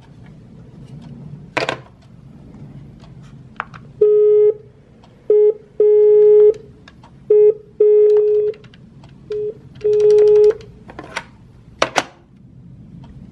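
Gigaset DA610 desk phone playing the line's dial tone through its hands-free speaker: one steady mid-pitched tone, switched on and off in a repeating pattern of a short beep, a long beep and a pause. Plastic clicks from handling the handset and buttons come before it, and sharp clacks near the end as the handset is handled again.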